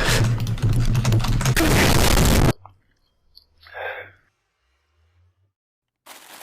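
Loud, crackling crunching of food being chewed close to the microphone, cutting off suddenly about two and a half seconds in. A short faint sound follows.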